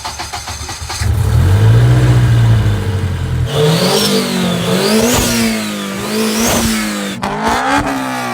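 Engine-swapped car's engine revved with no load: a long low rumble, then three quick revs, each with a high whine that rises and falls with the engine speed.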